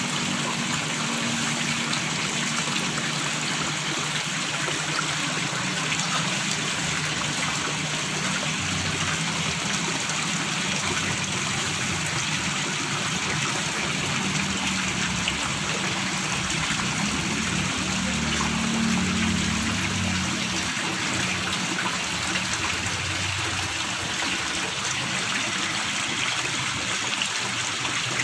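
Small stream gurgling and trickling over stones, a steady flow.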